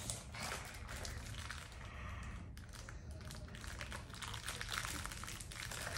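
Plastic sleeve of round crackers crinkling and rustling in the hands as crackers are pulled out of it, a steady run of small crackles.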